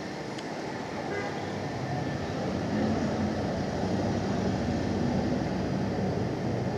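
Heavy street traffic growing louder as a vehicle comes closer, with a low steady horn tone from about two seconds in.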